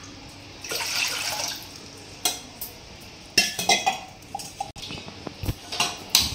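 Water poured from a brass pot and metal tumbler into a steel saucepan, a splashing pour about a second in, followed by a series of sharp metallic clinks and knocks as the metal vessels are handled and the saucepan is set down on the stove.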